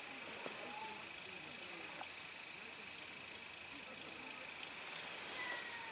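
Night insects chirring in a steady, high, continuous drone.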